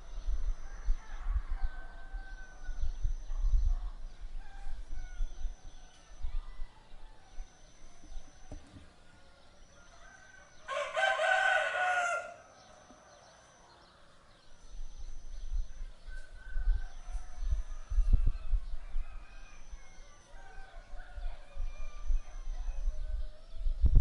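A rooster crows once, loud and clear, a little past the middle, over faint scattered bird calls. A low rumble comes and goes near the start and through the last third.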